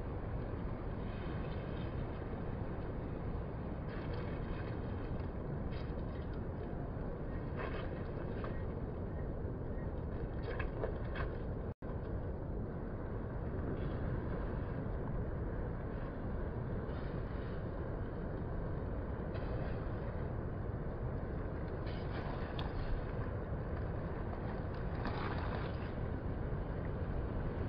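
Low-tide ocean surf: a steady low rumble from waves breaking offshore, with a hiss of wash coming and going every few seconds. The sound cuts out for an instant about twelve seconds in.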